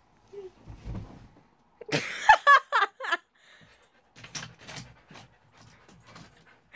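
Pet dog whining in a quick run of short, pitch-bending whines about two seconds in, with softer noises after. Just before, a soft thump and rustle as a person drops to the floor under a blanket.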